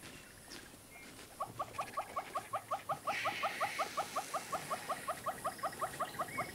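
A small animal calling in a fast, even series of short rising chirps, about five a second, starting a little over a second in, over a faint steady high trill.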